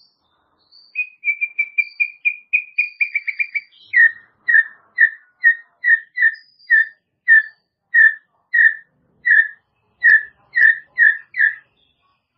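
White-rumped shama (murai batu) singing: a fast run of whistled notes that speeds up over about three seconds, then a slower string of repeated whistled notes, about two a second, stopping near the end.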